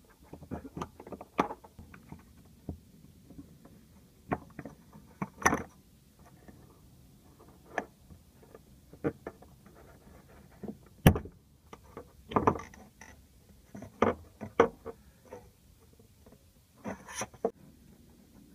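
Irregular clicks, taps and scrapes of a screwdriver and fingers working a plastic electrical connector loose on top of a car's in-tank fuel pump. The loudest is a single sharp click a little past halfway.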